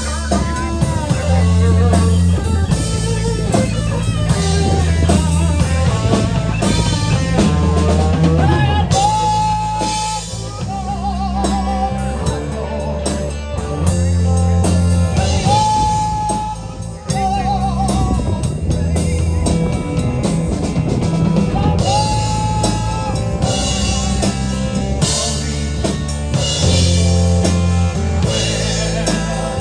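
Live rock band playing with drum kit, bass and electric guitars. A long held note with vibrato rings out three times, about six seconds apart.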